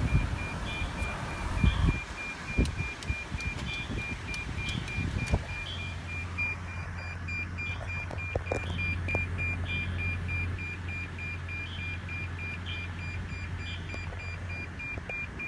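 Rapid, high electronic beeping at one steady pitch, repeating several times a second, with a low hum coming in about six seconds in.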